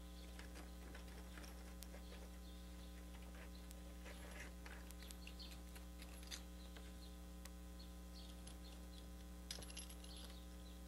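Faint, scattered small clicks and scratches of a splining tool's wheel rolling spline and screening into a screen frame's groove, in short rolling strokes. A steady low electrical hum runs underneath.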